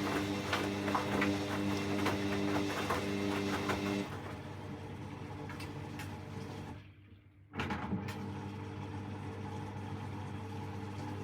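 Hoover washing machine early in its final 1000 rpm spin: the drum motor gives a steady whine with light rattling. About four seconds in the whine drops away, the motor goes almost silent for under a second near the middle, then starts up again.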